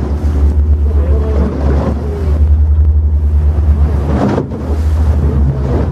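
Boat engine running with a steady low drone, with wind buffeting the microphone and sea noise around it.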